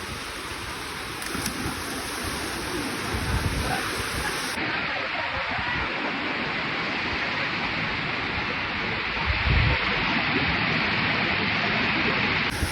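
Waterfall running: a steady rush of falling water, with a low thump about three and a half seconds in and another near ten seconds.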